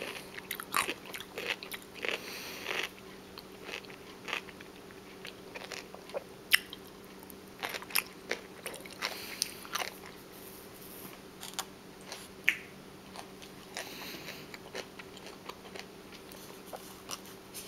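Close-miked biting and chewing of crunchy food: scattered crisp crunches, with two sharp loud bites about six and a half and twelve and a half seconds in, between stretches of softer chewing. A faint steady hum sits underneath.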